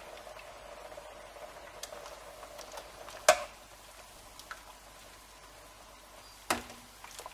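A metal ladle clinks sharply twice as hot pickling brine is ladled from a steel pot into glass jars of cucumbers: once loudly about three seconds in, once more softly near the end, over a faint steady hiss.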